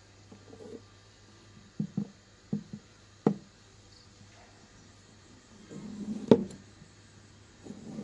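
Irregular sharp knocks on a hard surface: two quick pairs about two seconds in, a single knock a little later, and the loudest one about six seconds in, over a low steady hum.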